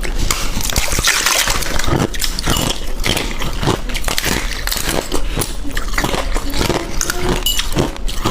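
Close-miked chewing and crunching of crushed ice in the mouth: a steady run of irregular crackles and crunches with wet mouth sounds.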